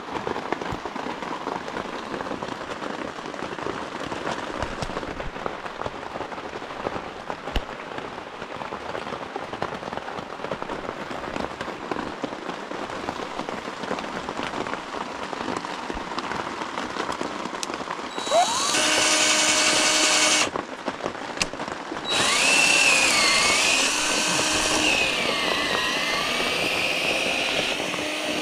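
Cordless drill running in two bursts, about two seconds and then about six seconds, with a short stop between; in the longer burst its pitch wavers as the bit works under load. Before the drill starts there is a steady low hiss.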